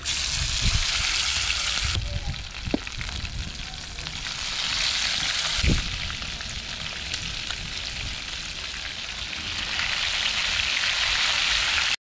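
Chicken pieces sizzling as they fry in hot oil in a frying pan over a wood fire, the sizzle swelling and easing as more pieces are laid in.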